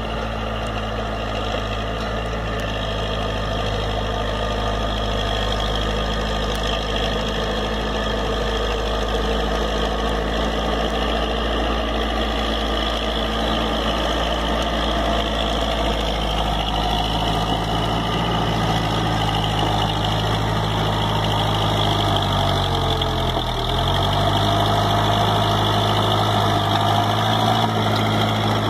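Backhoe loader's diesel engine running steadily while the machine pushes soil with its front bucket. About two-thirds of the way through, its pitch dips briefly and comes back up as the engine takes the load.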